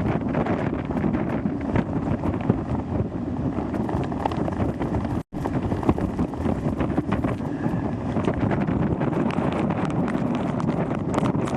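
Hurricane-force wind buffeting the microphone: a loud, continuous gusty rumble with crackling hits. The sound drops out completely for a moment about halfway through.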